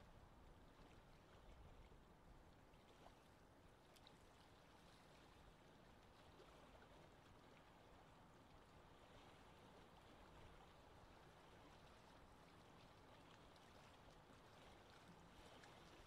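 Faint, steady wash of small wind-driven waves lapping at a grassy lake shore.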